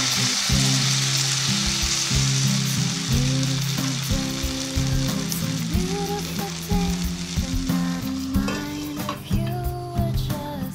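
Flour-and-water slurry sizzling loudly in a hot cast-iron frying pan around pan-fried dumplings. The water boils off in the oil, and the sizzle gradually dies down.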